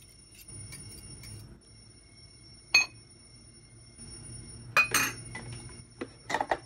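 Metal utensils clinking against a ceramic mixing bowl: a few light taps, a sharp ringing clink about three seconds in, and a cluster of louder clinks and knocks near the end.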